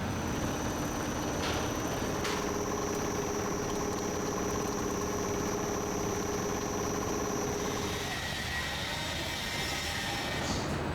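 Factory machinery running with a steady low rumble and a constant high whine. The whine drops out and the sound changes about eight seconds in.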